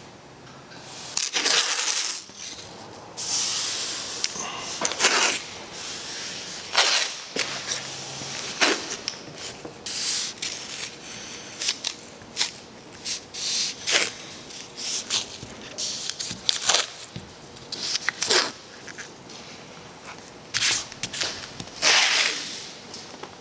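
Blue painter's masking tape being pulled off the roll in repeated rips, some short and some drawn out over about a second, at irregular intervals.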